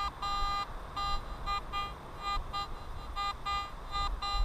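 Garrett AT Max metal detector sounding rapid, repeated short beeps in runs with brief pauses between, as its coil sweeps over a target.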